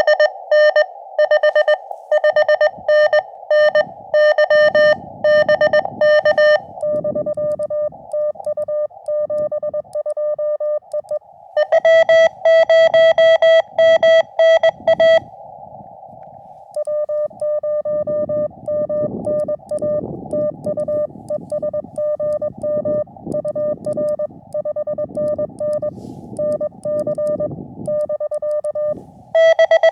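Morse code (CW) tones from a portable ham radio transceiver in an exchange. Loud keyed passages about the start, about halfway and at the very end alternate with a quieter, slightly lower-pitched keyed tone over receiver hiss, which is the other side of the contact. Under the quieter stretches there is a low rumble.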